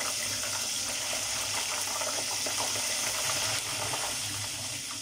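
Pork skin deep-frying in a pot of hot oil: a steady sizzle with many small crackles and pops, easing a little near the end.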